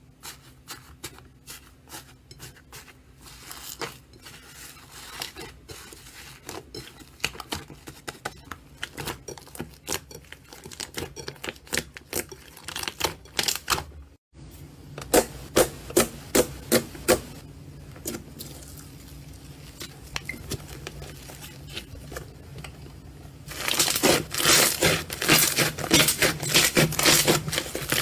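Slime being squeezed and poked by hand, making a string of sticky clicks, crackles and pops. Sharp pops come in a run near the middle, and denser, louder crackling sets in near the end.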